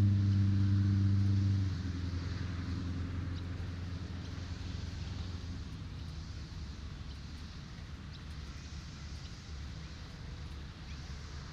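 Low steady rumble of road traffic under a soft surf hiss that swells and fades every few seconds, the whole gradually getting quieter. A low humming tone cuts off about two seconds in.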